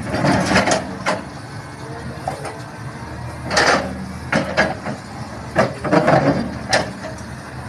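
Caterpillar excavator's diesel engine running steadily, with several short, louder sounds over it, the loudest about three and a half and six seconds in.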